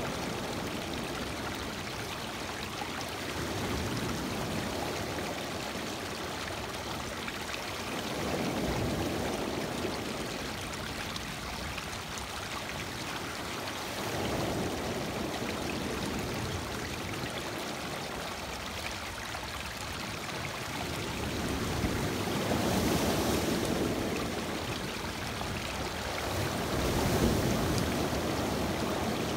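Lake waves breaking and washing in over a rocky, pebbled shore: a steady rush of water that swells every few seconds as each wave comes in.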